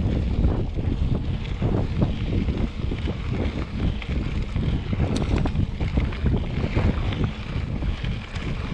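Wind buffeting the microphone of a mountain bike riding a dirt road, a steady low rumble with irregular knocks and rattles from the bike over rough ground.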